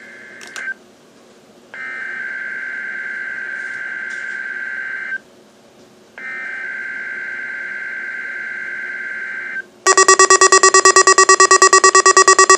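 NOAA Weather Radio's EAS SAME data header for a Required Weekly Test coming through the weather radios' speakers: the end of one burst of raspy digital warbling, then two more bursts of about three and a half seconds each with short gaps between. About ten seconds in, the weather radios' alerts go off together with loud, rapid pulsing beeps, triggered by the decoded test code.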